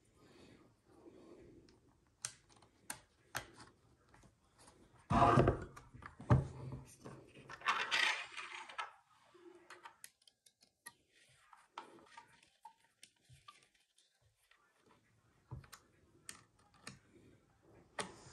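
Small metallic clicks and taps of a screw and hex key being worked on a Kel-Tec KSG shotgun's accessory rail while a forward grip is fitted. A louder knock comes about five seconds in and a short scraping rustle near eight seconds, with scattered light clicks after.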